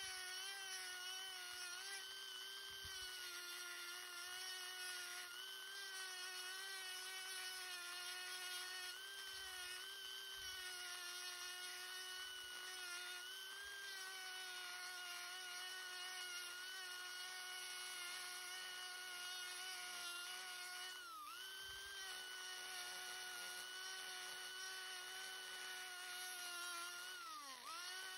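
Handheld rotary tool running at high speed, a small spherical burr grinding into pine wood, giving a steady high whine. The pitch dips briefly twice, about 21 seconds in and again near the end.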